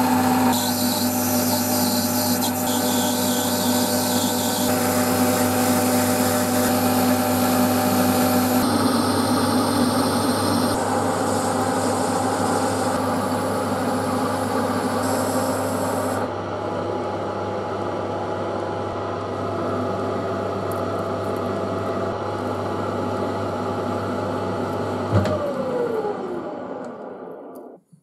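Metal lathe running and turning a steel bolt with a carbide insert cutting tool: a steady motor hum and whine under the cutting, changing abruptly a few times. Near the end a click is heard, the hum stops and the whine falls in pitch as the spindle slows to a stop.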